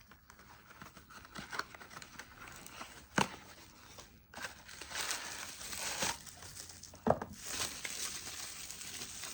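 Packaging being handled and opened: rustling and crinkling of plastic or paper wrapping, with a couple of sharp clicks or snaps and a stretch of tearing in the second half.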